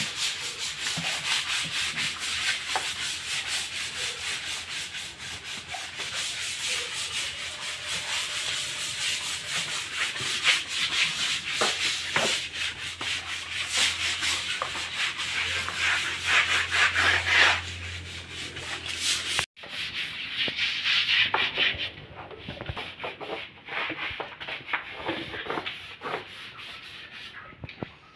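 A hand scrub brush scrubbing a wet, soapy concrete wall in quick back-and-forth strokes. The sound breaks off suddenly about two-thirds of the way through, then the scrubbing goes on more quietly.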